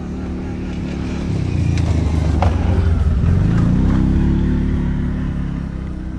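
ATV (four-wheeler) engines passing by: the running swells to its loudest about three to four seconds in, then fades away.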